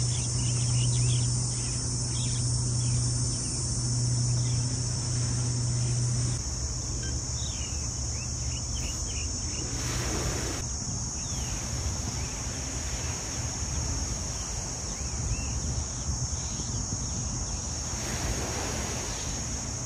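Steady, high-pitched drone of insects calling without a break, with faint short chirps above it. A low hum runs for about the first six seconds, and there are short rushes of wind or handling noise about halfway through and near the end.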